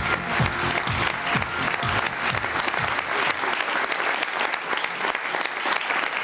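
Studio audience applauding, over entrance music with a low beat that fades out about halfway through.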